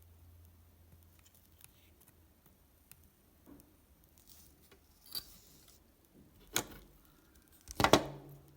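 Light scattered clicks and taps of small hard objects, then a sharper knock about six and a half seconds in and a short rattling clatter near the end.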